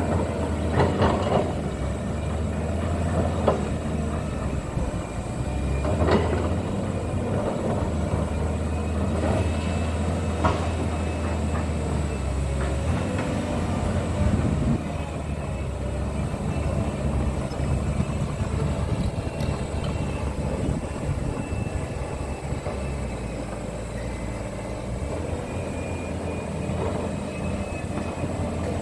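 Caterpillar 320D excavator's diesel engine running steadily under work, with a few sharp metallic knocks or clanks in the first half.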